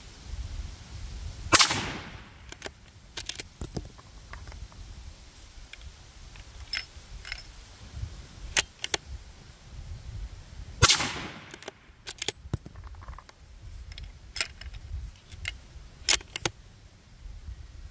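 Two rifle shots about nine seconds apart, each a sharp crack with a short echo trailing off. Lighter clicks and clatter come between them.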